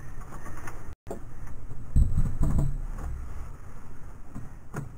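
Handling noise from cleaning a varnished wooden door with a cloth: a few dull knocks against the wood about two seconds in and light clicks near the end, over a low rumble.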